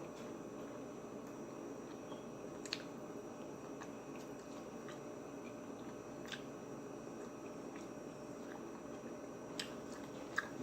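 Someone chewing food close to the microphone during a mukbang of jerk pork chops and sautéed vegetables, with a few short sharp mouth clicks over a steady low background hiss.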